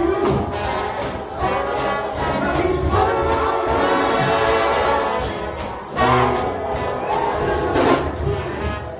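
Gospel shout-band music at a church revival: brass horns playing held chords over tambourines shaking a steady, fast beat.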